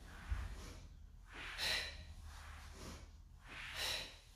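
A woman's sharp, hissing exhalations during a Pilates knee-tuck set, two of them about two seconds apart, keeping time with the reps. A brief dull thump comes just after the start.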